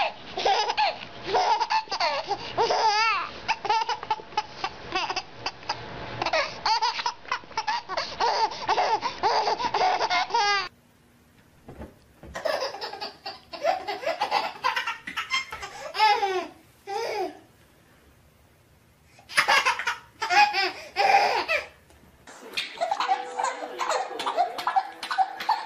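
Babies laughing hard in repeated giggling fits. The laughter breaks off about ten seconds in and comes back after a quieter stretch near the end.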